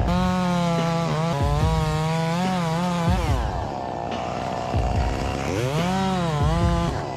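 Two-stroke chainsaw running at high revs, with the pitch wavering as it cuts for about three seconds before dropping off. Near the end it revs up again and falls back.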